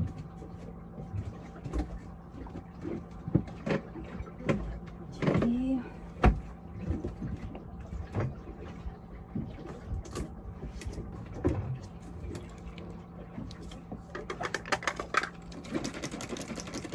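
Dishes and utensils knocking and clattering during food preparation in a boat's galley, with irregular knocks and clicks over a steady low hum. Near the end comes a run of rapid, even ticking.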